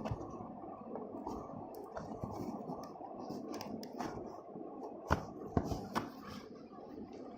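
Handling noises, rustling and scraping, with three sharp clicks a little after five seconds in.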